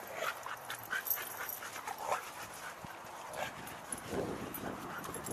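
Dogs playing, with a quick run of short yips and whines in the first two seconds or so and a lower, rougher sound about four seconds in.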